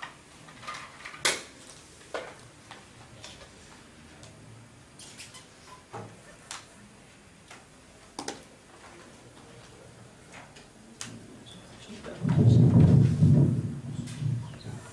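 Scattered clicks and taps of a laptop keyboard and trackpad being worked, a few seconds apart. Near the end comes a loud, low rustle lasting about two seconds.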